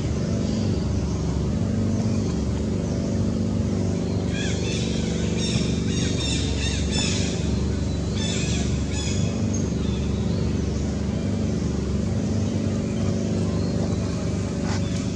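High-pitched screams from a baby long-tailed macaque, in a cluster from about four to nine seconds in. A steady low motor hum runs underneath throughout and is the loudest sound.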